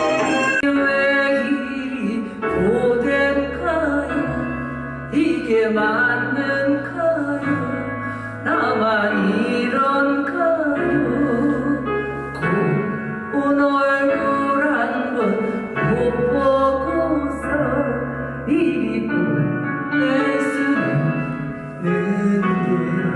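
A song sung with instrumental accompaniment, the melody carried over sustained bass notes that change every few seconds.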